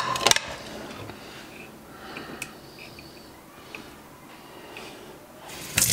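Quiet kitchen with a few small clicks as the tap is handled. Right at the end a sink tap is turned on and water starts gushing into the sink.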